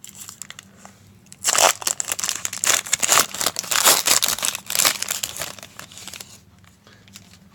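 A trading card pack wrapper being torn open and crinkled by hand: irregular rustling and crackling that starts about a second and a half in, goes on for about five seconds, and dies away near the end.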